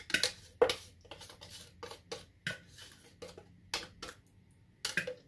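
Wire whisk clinking and knocking against the side of a terracotta clay pot while stirring the liquid, a string of irregular sharp taps.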